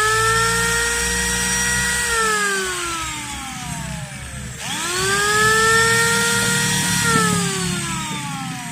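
Electric angle grinder (Bull BL8954) with a new 9500N-type armature, test-running with a steady whine and no brush sparking. It is switched off about two seconds in and spins down, then switched on again about halfway through and spins up quickly. About seven seconds in it is switched off once more and winds down near the end.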